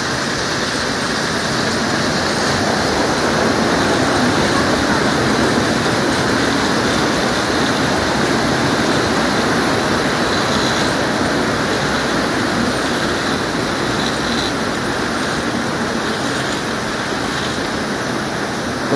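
A rocky mountain stream rushing over boulders: a steady, loud rush of water.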